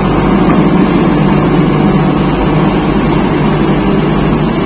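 JCB backhoe loader's diesel engine running steadily as it levels the ground.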